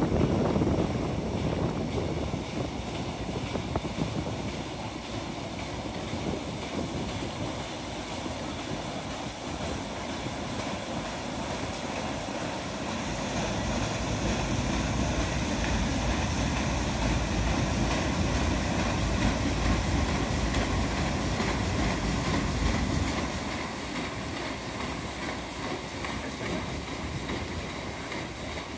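Paddle steamer Waverley under way: a steady mechanical rumble, the low end growing louder about halfway through and easing again near the end.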